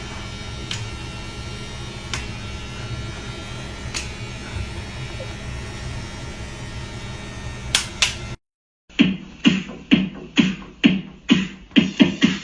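A steady low hum with a few sharp clicks, then, after a short break, electronic dance music with a steady, fast beat.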